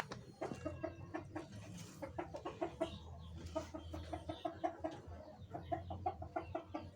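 Fowl clucking: runs of short repeated notes, several a second, over a low steady hum.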